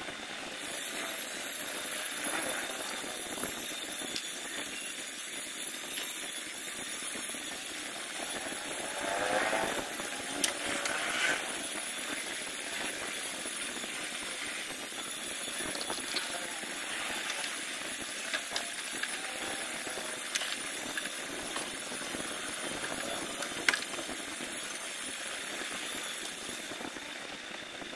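Steady background hiss with a faint high whine, broken by a few light clicks and taps as a wire and hand tools are handled under the hood.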